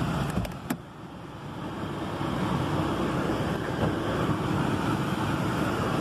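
Steady rush of a VW Polo's cabin ventilation fan blowing at maximum with the air conditioning switched on, over the engine idling, heard from inside the car. A couple of light clicks come about half a second in.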